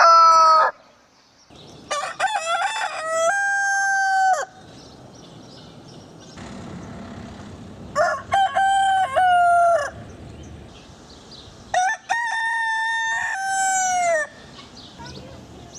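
Roosters crowing: the tail of one crow at the start, then three full cock-a-doodle-doo crows about four to five seconds apart, each ending in a long held note that falls away.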